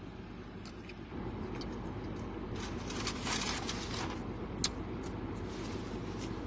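A person chewing a large bite of a chicken sandwich, with soft wet mouth noises and faint crunches, close to the microphone. A steady low hum fills the car cabin and grows a little louder about a second in.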